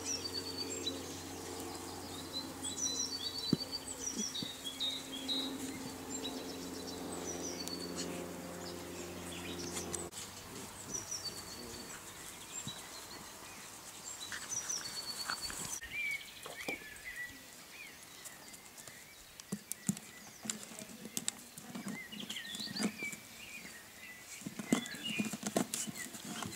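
Small birds chirping over a steady low engine hum that stops abruptly about ten seconds in, with light scuffling and clicks of golden retriever puppies' paws on gravel.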